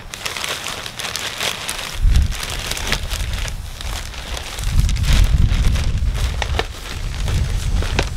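Plastic potting-mix bag crinkling and crackling as it is handled, along with the rustle of potting soil being worked by hand. Low rumbles come about two seconds in and again from about five to seven seconds.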